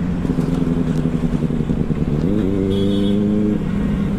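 Benelli 600i superbike's inline-four engine and exhaust running in traffic; about two seconds in the revs rise quickly, hold for about a second, then drop back.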